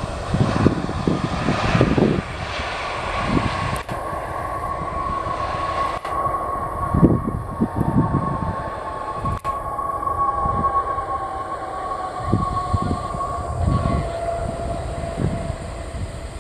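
Jet engines of a Boeing 767 freighter running as it rolls along the ground: a steady high whine, and a second tone that slowly falls in pitch. The whine stops near the end. Gusty low rumbling of wind on the microphone runs underneath.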